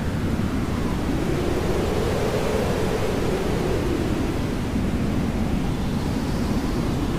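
Steady hair dryer noise used as white noise: a constant rushing hiss with a low band that slowly drifts up and down in pitch.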